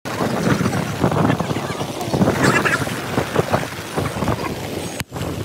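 Wind buffeting the microphone in a rough, uneven rush of gusts, with the sea's surf behind it.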